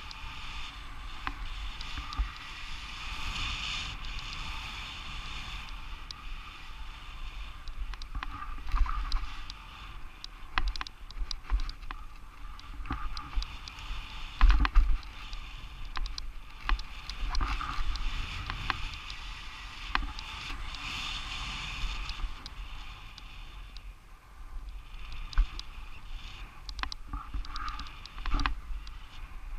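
Skis hissing through deep powder snow, the hiss swelling and fading with each turn, over a low rumble of wind on the helmet-camera microphone. Scattered knocks and thumps, the loudest about halfway through.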